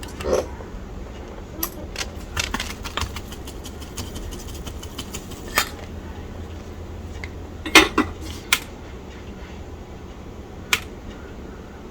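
Scattered sharp clicks and taps of small hand tools and components being handled on a workbench during circuit-board assembly, irregularly spaced with the loudest pair about eight seconds in, over a low steady hum.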